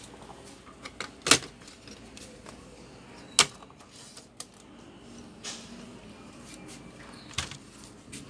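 Plastic casing of a Toshiba Satellite C640 laptop being handled and set down on a work mat: sharp knocks about a second in and again about three and a half seconds in, a softer knock near the end, with small clicks and rattles between.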